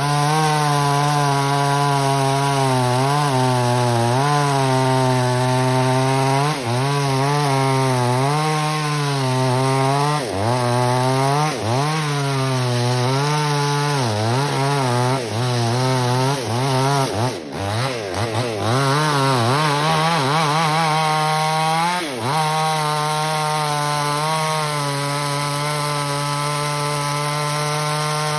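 Small chainsaw engine running at high speed through teak branches, its pitch dipping and recovering again and again as the chain bites into the wood and the engine comes under load.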